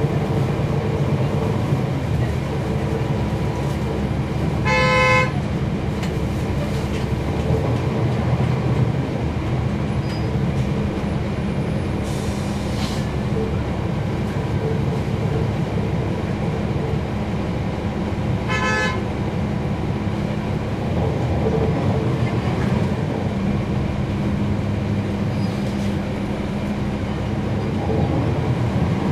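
Cummins ISL9 diesel engine of a 2011 NABI 40-foot transit bus running steadily, heard from the rear seat inside the cabin. Two brief horn-like beeps sound about five seconds in and again near nineteen seconds.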